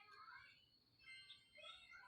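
Faint chirping calls, a few short notes at a time, with a steady thin high tone underneath.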